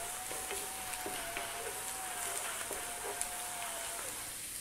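Chopped onion and grated carrot sizzling in sunflower oil in a frying pan on high heat, with scattered small crackles. A faint steady whine runs under it and stops about four seconds in.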